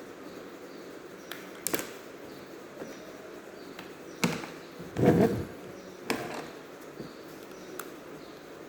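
Scattered clicks and knocks from laptop parts and tools being handled during disassembly, about seven in all, with the loudest a short cluster about five seconds in, over a steady low hum.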